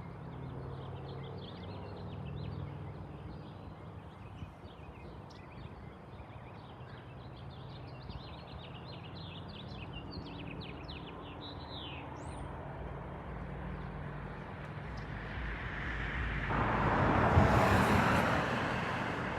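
Jet airliner flying overhead: a low engine drone under birds chirping, then a loud rush of jet noise that swells about sixteen seconds in, peaks, and starts to fade.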